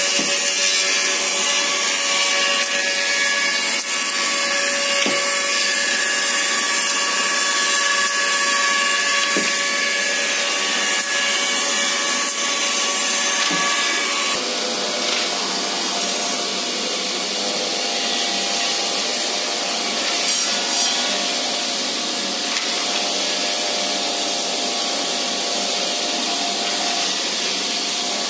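Woodworking machinery running continuously on a wooden-handle production line, a steady mechanical din with several held pitches over a rushing noise. The mix of machine sounds changes abruptly about halfway through.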